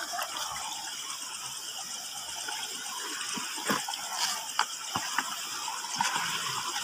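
Running water of a rocky stream, a steady rush, with several sharp knocks and small splashes about halfway through and later.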